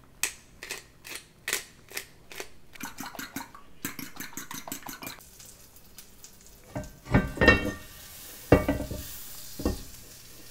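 Cooking utensils at work: a metal utensil clicks repeatedly against a dish, about two to three clicks a second. In the second half come a few duller knocks of cookware over a faint sizzle from the frying pan.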